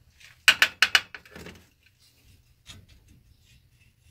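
Four sharp metallic clicks in quick succession, then a few fainter knocks and clinks, from hand work on the cylinder head of a Kawasaki KV75 two-stroke engine as it is freed from the cylinder.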